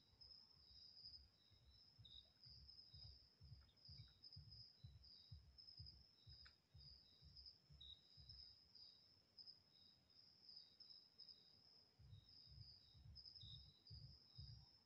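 Faint, steady high-pitched trilling of night insects, pulsing without a break, over a low, irregular rumble.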